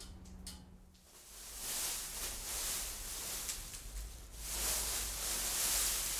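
Plastic sheeting wrapped around a clay statue rustling steadily, starting about a second in, with a brief dip about four seconds in.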